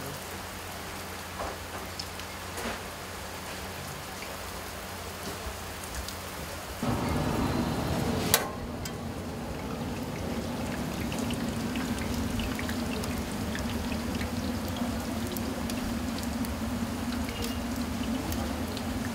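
Jalebi batter frying in a wide pan of hot oil, a steady crackling sizzle. From about seven seconds in it grows louder and a steady low hum joins it, with one sharp click just after.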